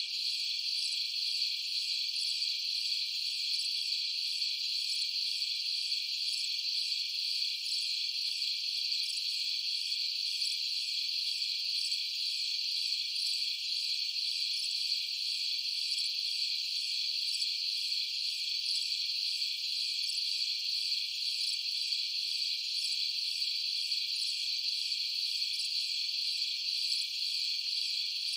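A continuous high-pitched insect chorus with a fast, even pulsing trill, unchanging throughout.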